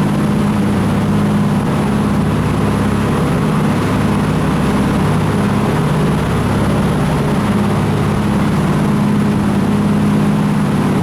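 Jet boat's engine running steadily underway, a constant low drone under a steady rush of water and air.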